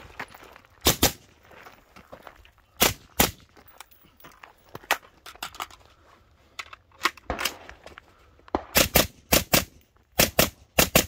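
Rapid rifle fire from an AR-15-style carbine with a 14.5-inch barrel, firing 55-grain FMJ: about a dozen sharp shots, mostly fired as quick pairs. There are two pairs in the first few seconds and a fast run of pairs near the end.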